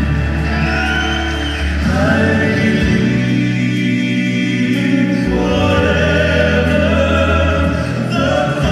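Gospel song: voices singing, choir-like in places, over sustained instrumental backing with slowly changing bass notes.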